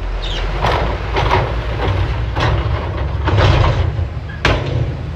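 Bulldozer at work: its engine running steadily under a series of loud clanks and crashes, about five in all, the sharpest one near the end.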